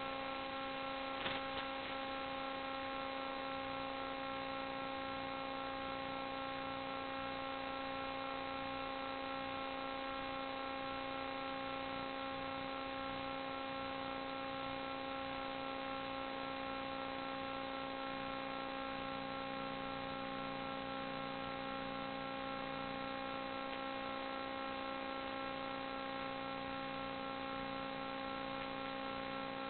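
Steady electrical hum and buzz, a stack of even unchanging tones over hiss, as carried on the audio channel of an analog 5.8 GHz FPV video link. A short click about a second in.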